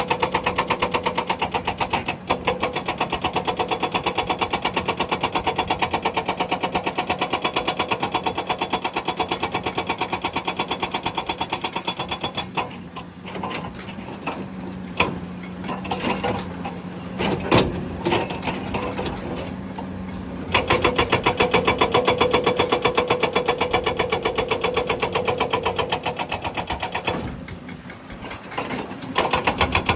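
Hydraulic breaker on a Komatsu PC200 excavator hammering rock in rapid, even blows over the excavator's steady engine. About halfway it stops for several seconds, leaving scattered knocks, then hammers again and pauses once more near the end.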